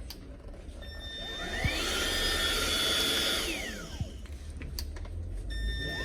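Tefal cordless vacuum cleaner's motor switched on, whining up to speed, running about two seconds and winding down when switched off, then starting up again near the end.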